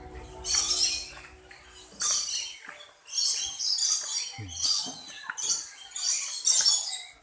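Small cage birds chattering and squawking in short, high-pitched bursts, about one burst a second.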